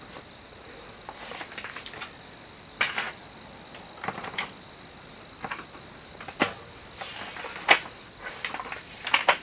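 Irregular sharp clicks, taps and light rustles of small plastic Playmobil parts being handled and fitted together, about eight in all, with a few loud ones spaced a second or so apart.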